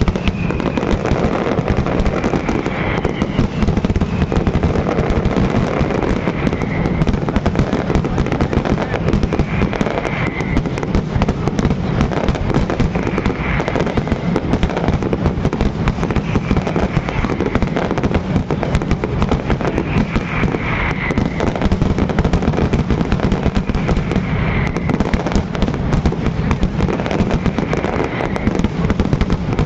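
A dense, continuous barrage of aerial fireworks: shell bursts and crackle follow one another without a break.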